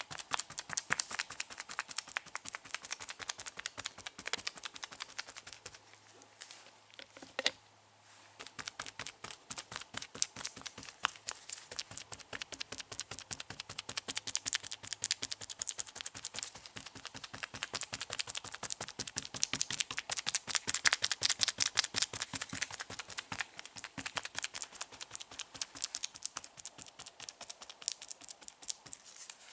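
Chip brush dabbing catalysed resin into fiberglass mat, a rapid, steady run of short wet taps several times a second, with a brief lull a few seconds in.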